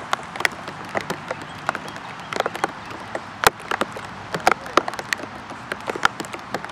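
Rain falling: irregular sharp taps of single drops over a steady hiss.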